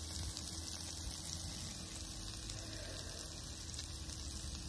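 Sausage, peppers and onion frying in a pan on a portable hot plate: a steady sizzle with faint crackles.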